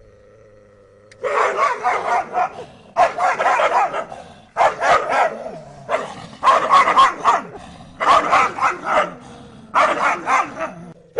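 Dogs barking in repeated bursts of rapid barks, a burst about every second and a half, starting after a quieter first second.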